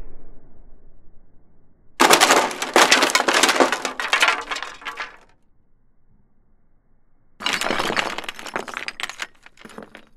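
Glass shattering twice: a long crash of many small crackling breaks starting about two seconds in and lasting some three seconds, then a second one starting about seven and a half seconds in.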